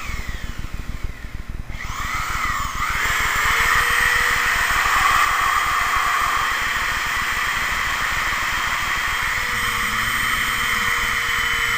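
Corded electric drill spinning a mixing paddle in a bucket of thick joint mastic. It runs slower at first, speeds up about two seconds in, then runs at a steady speed, churning the mastic.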